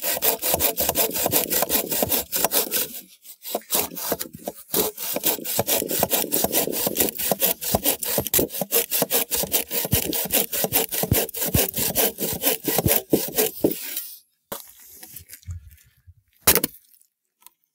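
Hand bow saw cutting through a log in quick, even back-and-forth strokes, with a short break about three seconds in. The sawing stops near the end, followed by a few short knocks.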